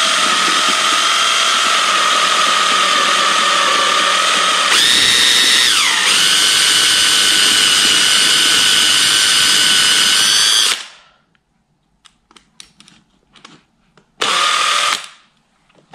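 Cordless drill with a 6 mm wood bit boring holes into the edge of an Ikea Kallax shelf divider. The motor runs with a steady whine whose pitch dips and settles lower about five seconds in. It stops shortly before eleven seconds, a few light clicks follow, and the drill runs again for about a second near the end.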